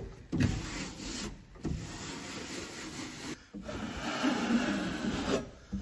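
Freshly pasted wallpaper being smoothed onto a ceiling by hand: a dry rubbing, scraping sound in three long strokes with short breaks between.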